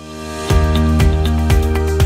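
Background music: a swell rising, then about half a second in a beat kicks in, with sustained chords and sharp drum hits about twice a second.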